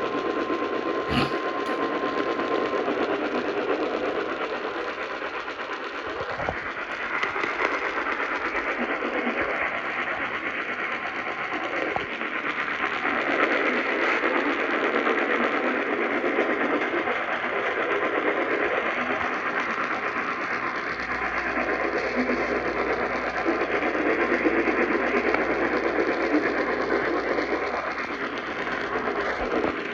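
Radio static: a steady hiss of poor broadcast reception, with a faint steady tone in the first few seconds that cuts off.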